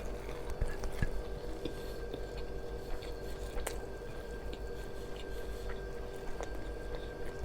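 Someone chewing and biting into fried masala chicken, with small scattered crunchy clicks over a steady background hum.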